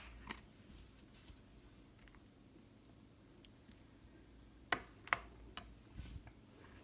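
A few light clicks and taps as a honey container is picked up and opened, with two sharper clicks close together about five seconds in.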